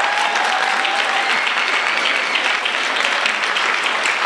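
Large audience applauding: dense, even clapping at a steady level.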